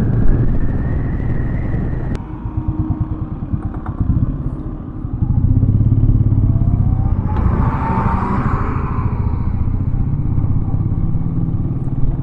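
Motorcycle engine running while riding a rough dirt road. The throttle eases off about two seconds in, leaving the engine pulsing at low revs, then it picks up again about five seconds in. A burst of noise comes about eight seconds in.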